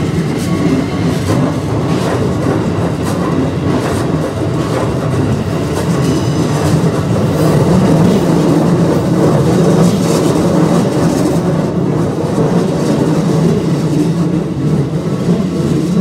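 Keikyu electric trains passing close by over the level crossing: a continuous loud rumble of steel wheels on the rails with scattered clacks as the wheels cross the rail joints. It grows a little louder partway through as a second train passes the crossing.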